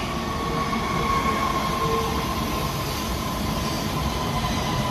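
Breda A650 subway cars rolling past along the platform as the train pulls into the station, a steady rumble of wheels and running gear with a faint steady high whine over it.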